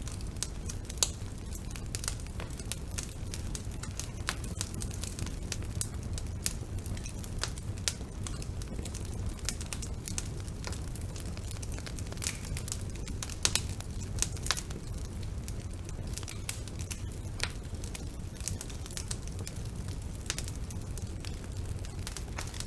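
Wood fire burning in a fireplace: a steady low rumble of flame with frequent irregular crackles and pops of burning logs, a few of them sharper, about a second in and again around thirteen seconds.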